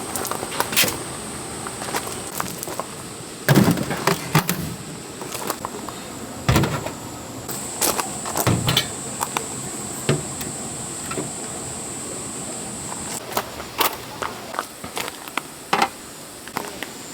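Irregular knocks and clatters of objects being handled and set down, with the loudest about three and a half, six and a half and eight and a half seconds in. A thin, steady high-pitched whine runs behind them and fades about thirteen seconds in.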